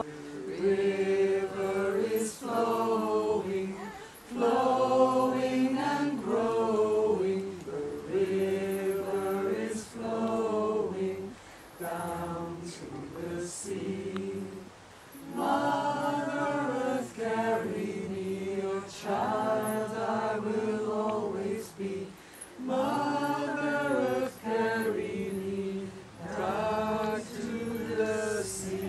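A group of voices singing a slow, chant-like song together in held phrases of one to three seconds, each followed by a short pause.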